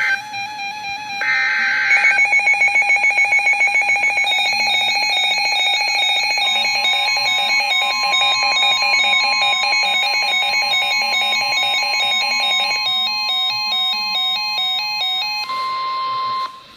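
Emergency alert tones from a NOAA Weather Radio broadcast before a severe thunderstorm warning: a short buzzy data burst about a second in, then a long run of fast-pulsing and shifting electronic alarm beeps, with a steady high attention tone joining and growing louder near the end before everything cuts off suddenly.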